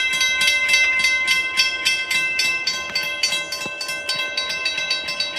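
Railroad crossing warning bell ringing rapidly, about four strikes a second. The gate arms are lifting, so the crossing is clearing.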